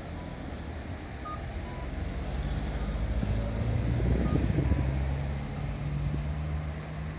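Japanese audible pedestrian crossing signal sounding short two-tone beeps, a higher note followed by a lower one, repeating about every second and a half. Under it is a steady low rumble of traffic.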